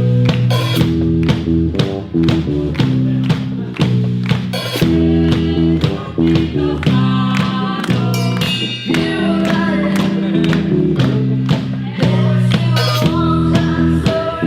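Rock band music: drums keeping a steady beat under distorted guitar and bass chords, with no clear words sung.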